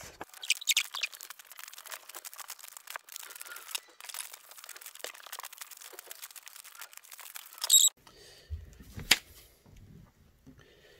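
Scissors cutting through paper in a quick run of snips and rustles for about eight seconds. Then quieter paper handling with a single sharp click.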